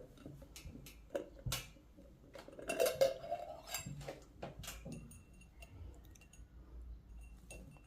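Scattered light knocks and clinks of small hard objects being moved or dropped, with a short sound rising in pitch about three seconds in.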